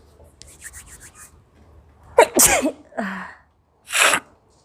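A woman sneezing hard twice, about a second and a half apart; the first sneeze trails off into a voiced gasp. The sneezes are provoked by chilli powder. Before them there is a quick run of faint rasping strokes.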